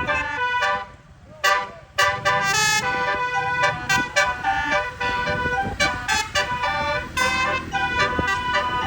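Bus telolet horn, a set of electric air horns sounding a quick tune of changing notes, breaking off briefly about a second in and then carrying on, over a low engine rumble.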